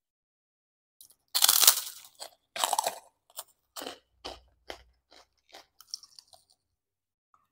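Two loud bites into a crispy fried cracker, about 1.3 and 2.6 seconds in, then a run of crunchy chewing close to the microphone that grows fainter.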